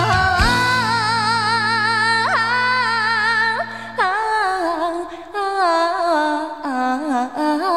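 Recorded Chinese Huangmei-tune folk music: a single melody line with heavy vibrato and sliding ornaments holds a long note, then moves on, over low sustained accompaniment notes that drop out about four seconds in.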